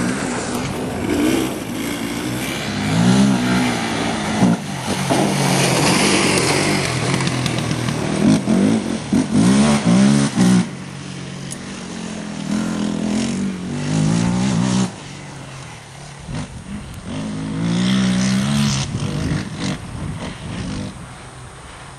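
Yamaha sport quad engines revving hard, the pitch climbing and dropping back again and again as the riders work the throttle and shift gears. About two-thirds of the way through the sound drops to a fainter level as the quads move away.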